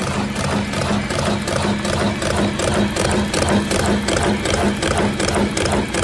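Electric cigarette-rolling machine running: its mechanism clacks in a fast, even rhythm over a steady motor hum.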